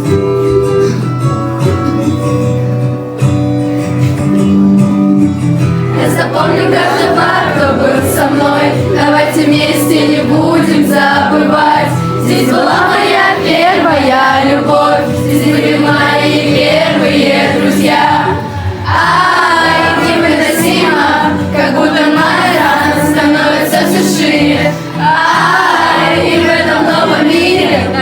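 A song: guitar chords alone at first, then several voices start singing about six seconds in and carry on over the accompaniment.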